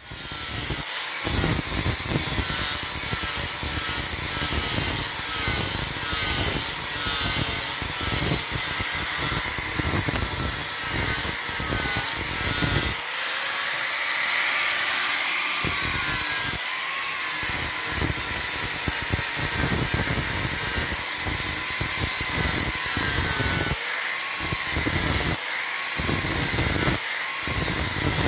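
Electric angle grinder with an abrasive disc running continuously and grinding a steel blade's edge, its whine wavering as the disc is pressed onto the metal and eased off.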